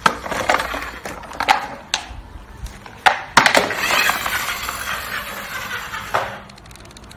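Green plastic toy military jeep handled with a few sharp clacks, then set down and its wheels rolling across a stone floor with a steady rattling hiss for about three seconds before stopping suddenly.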